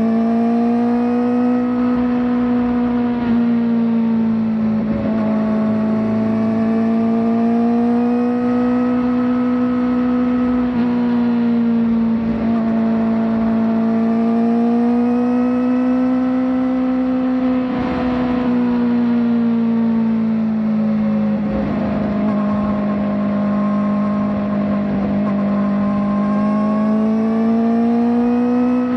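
Kawasaki ZX-4RR's 399 cc inline-four, fitted with a slip-on exhaust, running at steady mid revs under load. Its note rises and falls gently every few seconds as the throttle is eased on and off, with a few brief rough patches.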